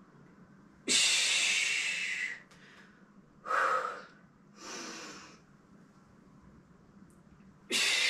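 A woman breathing hard under exertion while squatting with dumbbells: a long, forceful exhale through the mouth about a second in, two shorter breaths in the middle, and another sharp exhale near the end.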